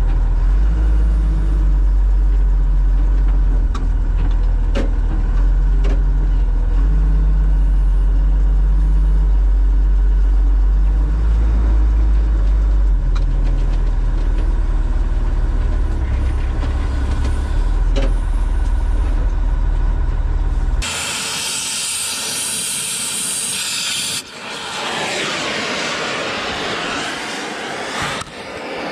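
Diesel engine of a loader running hard, its speed stepping up and down several times as the machine is driven. About two-thirds of the way through it cuts off abruptly and a steady hiss follows.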